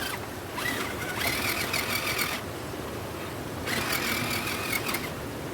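Electric motor and gearing of a 1/10-scale RC rock crawler whining under throttle in two bursts, the first about two seconds long and the second just over a second.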